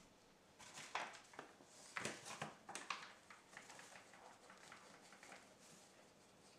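Paper flour bag crinkling and rustling as it is picked up and tipped, in irregular crackles loudest in the first three seconds, then fainter rustles while flour is poured into a mixing bowl.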